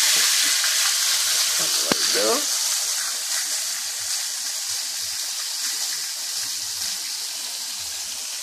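A pork chop frying in canola oil in a pan: a steady high sizzle that slowly gets quieter, with a single sharp click about two seconds in.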